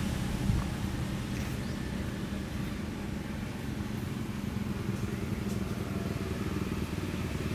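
A steady low engine hum, with a few faint clicks over it.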